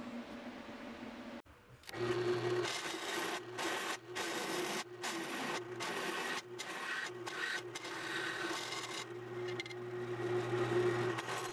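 Arc welding a threaded rod onto a homemade puller's base: the arc crackles and buzzes in a series of short runs with brief stops, starting about two seconds in, after a steady hum.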